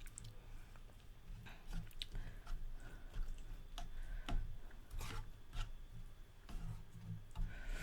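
Faint eating sounds: scattered small clicks and soft wet noises of a spoon and chewing, as rice soaked in spicy chicken-feet broth is eaten.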